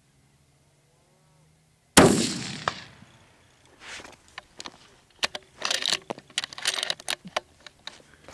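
A single rifle shot about two seconds in, very loud, its report trailing off over about a second. It is followed by a scatter of irregular clicks and rustles.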